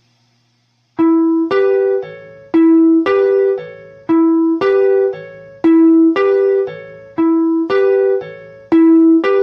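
Single melodic notes with a clean, piano-like tone, beginning about a second in and played one at a time in a short repeating figure of about two notes a second, each note ringing and fading.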